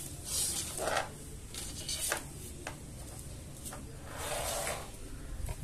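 Soft rubbing and swishing, with a few light clicks, as a painted CD and a thin paintbrush are handled.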